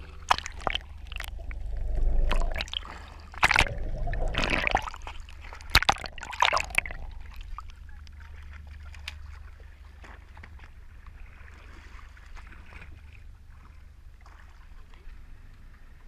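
Sea water sloshing and splashing over a camera held at the surface: a run of loud, sudden splashes and surges over the first seven seconds, then quieter steady water noise with a low rumble.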